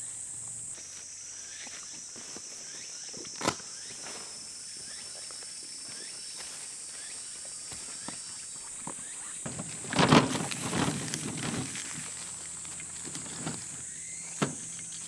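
Insects buzzing steadily and high-pitched, with the handling of a folding solar panel and footsteps on dry leaf litter over it: a sharp click a few seconds in, a louder burst of rustling and clattering about ten seconds in, and another click near the end.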